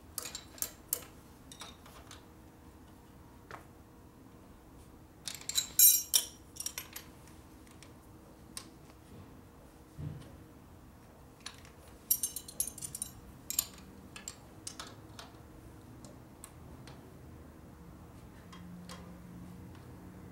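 Wrenches clinking on the pushrod adjusters and jam nuts of a 1949 Harley-Davidson Panhead engine while the valve clearance is set: scattered metallic clicks, with two busier clusters, the loudest about six seconds in and another around twelve to thirteen seconds.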